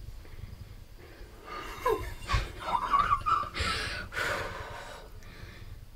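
Heavy breathing close by: several sharp breaths and gasps from about one and a half to four and a half seconds in, one with a brief falling squeak.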